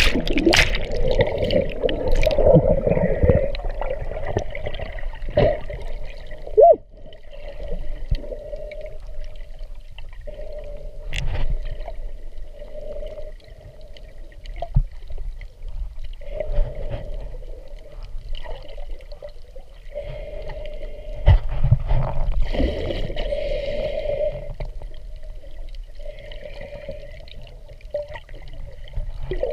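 Muffled underwater sound: a rush of bubbles and water churning at the start, then a low wash of moving water with occasional thumps, loudest again about three-quarters of the way through.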